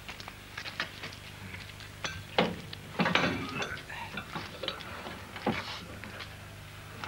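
Metal clinking and knocking as a car's starting handle is fitted and turned by hand, a scatter of sharp clicks with a few louder knocks; the engine has not started.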